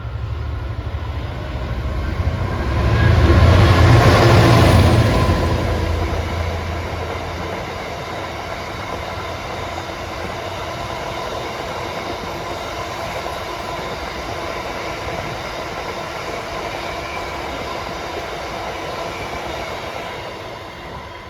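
A train passing at speed: a deep engine rumble peaks about four seconds in as the front goes by, followed by a long, steady rumble of wheels on the rails as the rest of the train rolls past, fading near the end.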